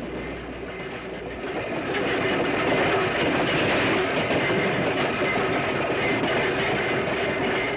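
Electric interurban train running along the track, its wheels rumbling on the rails with a faint steady whine above; it grows louder about two seconds in.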